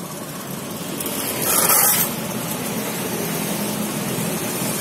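Steady road traffic and vehicle engine noise. A louder hiss comes about one and a half seconds in, like a vehicle passing close by.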